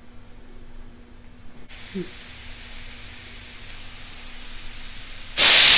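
Stovetop pressure cooker: after a few quiet seconds, steam suddenly hisses out loudly under the weight near the end. This is the cooker's whistle, the sign that it has come up to pressure.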